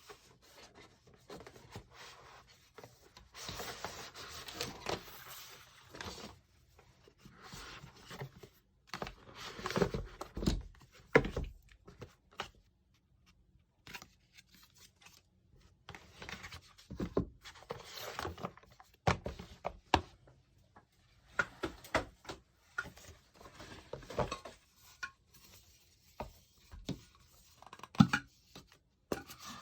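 Parcel packaging being opened by hand: bursts of rustling and tearing, with irregular knocks and taps as items are picked up and set down.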